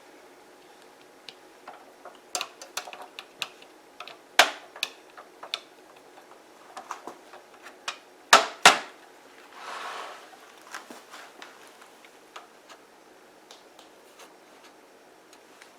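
Slow cooker being handled and set going: scattered light clicks and knocks, two sharp clacks a little past the middle, and a brief rustle just after them.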